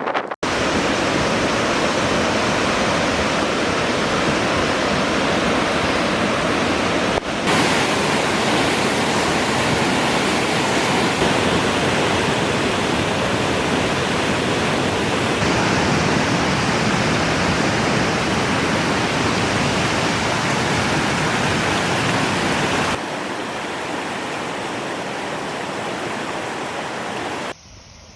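Typhoon storm noise: a loud, steady rushing of wind and water, broken by short cuts between shots about seven seconds in, then quieter from about three quarters of the way through and dropping again near the end.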